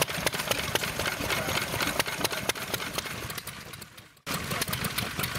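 Small vintage stationary engines running, among them a green Lister, with a busy, irregular clicking beat. The sound dips away about four seconds in and comes back as another engine runs.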